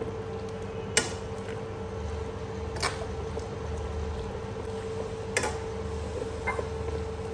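Stainless steel slotted skimmer stirring wet cabbage in broth in a nonstick wok, with sharp clicks of metal against the pan about a second in, near three seconds, and twice past five seconds. A steady hum runs under it.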